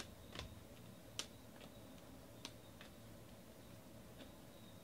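Faint, irregular clicks of 2019 Donruss Optic baseball cards being slid off a stack one at a time and flipped onto the back of the pile, the clearest about a second in.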